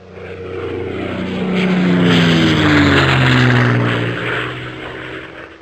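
Airplane fly-by sound effect: an engine drone swells up, its pitch falling as it passes, then fades away.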